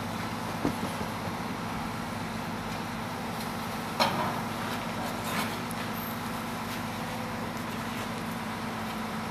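Large mobile crane's diesel engine running steadily, with a sharp knock about four seconds in and a few lighter knocks from the site.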